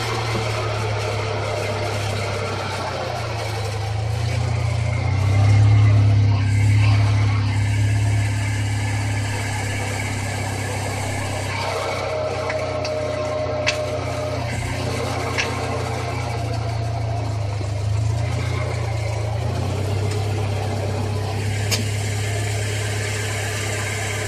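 2003 Subaru Legacy BP5A GT's engine running at idle with the churning, grinding noise of a failed clutch release bearing. The noise is loudest with the clutch pedal pressed, and a lighter rubbing remains with the clutch engaged. The sound swells and changes its note a few times, with a few faint clicks.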